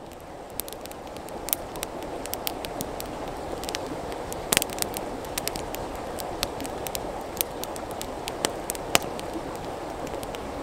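Wood campfire crackling, with sharp irregular pops and snaps over a steady rushing noise, fading in over the first couple of seconds.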